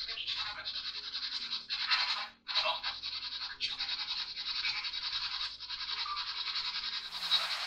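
Steady buzzing static, rapidly pulsing, broken by a few short gaps, with a brief brighter hiss about seven seconds in.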